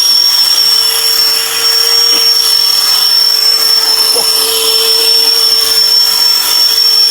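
Cordless ducted-fan blower with a brushless motor running steadily: a high-pitched whine over a loud rush of air.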